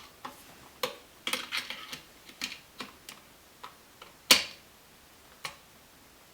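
Irregular sharp clicks and taps of hand tools and stiff copper wire being handled while an electrical outlet is wired, the loudest click about four seconds in.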